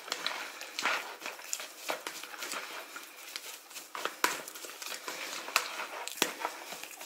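A fork mixing grated cauliflower, egg and shredded mozzarella into a dough in a bowl: irregular clicks and scrapes of the fork against the bowl over a soft, wet stirring noise.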